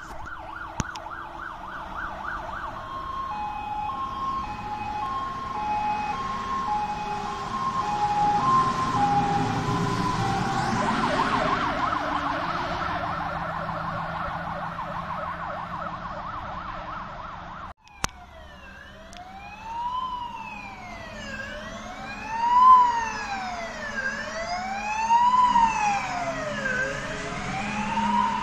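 Fire engine sirens on an emergency run. First a fast warbling yelp runs alongside an alternating two-note hi-lo tone. After a break about two-thirds through, a slow wail rises and falls every couple of seconds over the rumble of the trucks.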